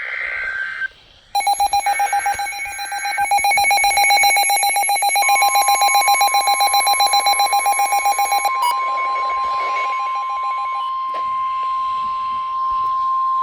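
NOAA Weather Radio alert tones. The end of a warbling EAS digital header burst is followed by a weather radio's rapidly pulsing, buzzy alarm. About five seconds in, the steady 1050 Hz warning alarm tone joins and holds to the end, announcing a severe thunderstorm warning.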